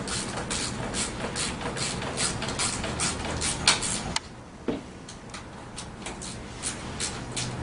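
Hand wrench tightening a dirt bike's handlebar clamp bolts: a run of sharp metallic clicks, about three a second, which stops about four seconds in, with a few single clicks after.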